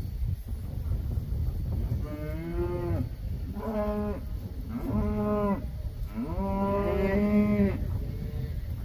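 Cattle mooing: four calls, starting about two seconds in, the last one the longest, held about a second and a half.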